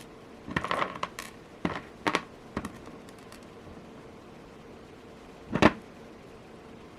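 Small clicks and light rustling as a metal jump ring and jewelry pliers are picked up and handled, followed by one sharper knock a little past halfway.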